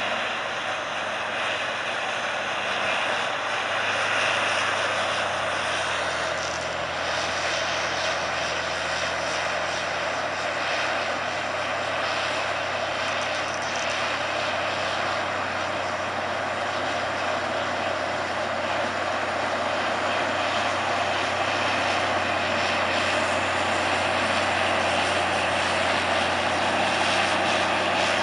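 Caterpillar D8T crawler dozer's six-cylinder diesel engine running steadily under load as it pushes a blade of soil.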